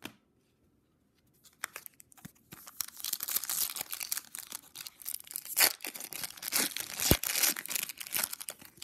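Foil wrapper of a 2007 Contenders football card pack crinkling and being torn open by hand, starting about two and a half seconds in and going on in a dense run of crackles and rips.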